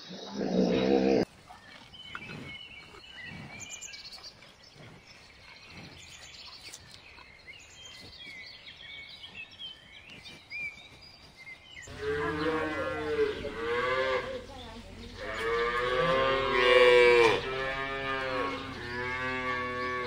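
Cattle mooing: about four long moos in the last eight seconds, the loudest a little over four seconds in. Before them, a loud sound breaks off about a second in, followed by quiet with faint high chirps.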